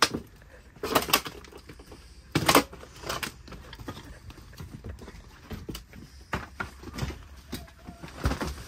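Footsteps crunching and cracking through debris and rotten wooden floorboards: irregular snaps and knocks, the loudest about a second in and again about two and a half seconds in.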